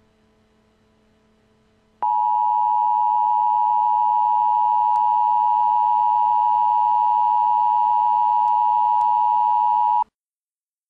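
Emergency Alert System attention tone: one steady high alarm tone that starts after about two seconds of faint hum, holds for about eight seconds and then cuts off suddenly. It signals that a spoken warning message follows.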